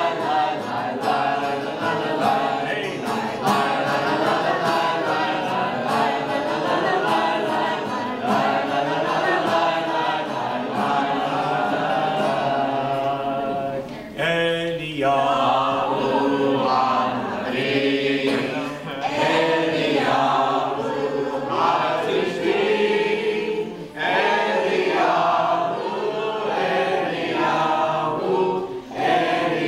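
A group of people singing a Havdalah song together, with a brief pause about halfway before the singing resumes.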